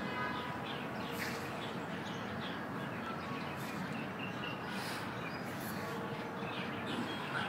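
Small birds chirping in short, repeated calls over a steady background noise of outdoor ambience.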